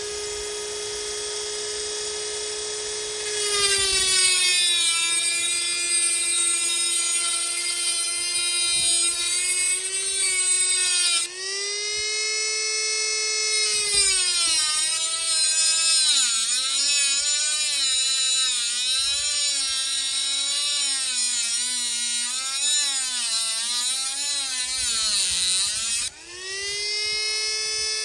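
Small power cutting tool whining at speed. Its pitch drops and a loud grinding hiss comes in whenever the disc bites into metal as it cuts a notch into a stripped button-head screw. It bites about three seconds in, spins free briefly near the middle, then cuts again with the pitch wavering, and runs free near the end.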